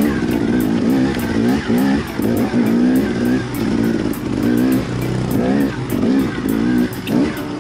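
Dirt bike engine under a rider's throttle, its pitch rising and falling over and over in short surges as the throttle is opened and shut on rough trail.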